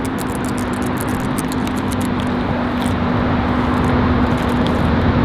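Steady engine and road noise of a car under way, heard from inside the cabin, with a constant drone and a few faint ticks.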